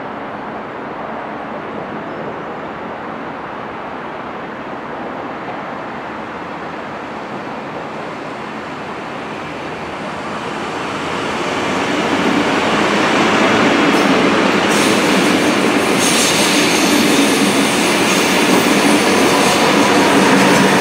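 Intercity 2 double-deck electric train approaching and passing close by. Its wheel and rail noise rises out of steady background noise about ten seconds in, to a loud, steady rush as the coaches and the electric locomotive go by.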